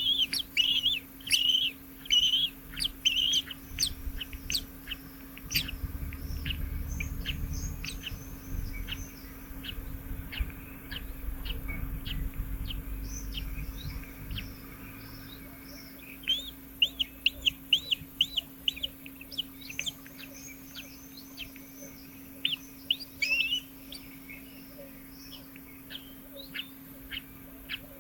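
Small songbirds at a nest chirping: short high chirps in quick runs, typical of nestlings begging to be fed. A low rumble runs through the middle, and a faint steady hum sits underneath.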